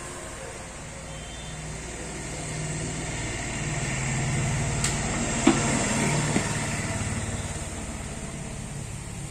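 Low rumble of a passing motor vehicle, building to a peak about halfway and then fading, with a few sharp knocks near the middle.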